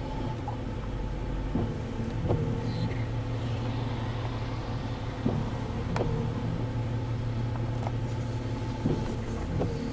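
Vehicle engine idling steadily with a low hum, with a few short knocks scattered through.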